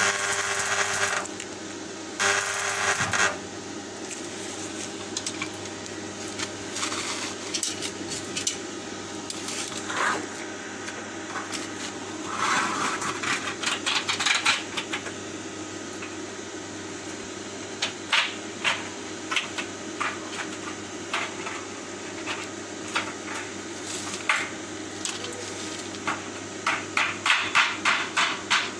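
Hammer tapping irregularly, with a quick run of taps near the end, over a steady low hum.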